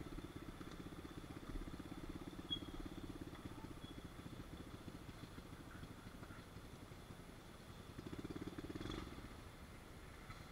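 Small pit bike engine running steadily at low throttle, faint, picking up briefly about eight seconds in.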